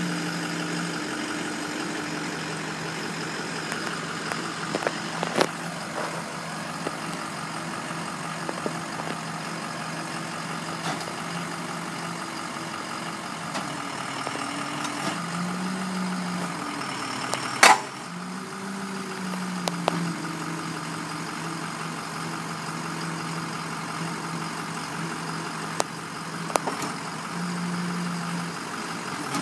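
Ford F550 wrecker's 6.0-litre Power Stroke diesel idling while its hydraulics fold up the wheel-lift and raise the boom, the engine note rising briefly a few times as the controls are worked. Occasional metal clanks come through, the loudest a sharp clank a little past halfway.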